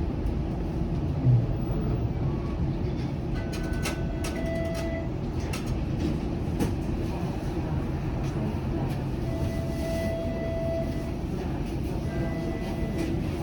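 Toronto TTC Flexity Outlook low-floor streetcar running along its track, heard from on board: a steady low rumble, with a run of sharp clicks and rattles a few seconds in and a few brief, thin tones held for a second or so.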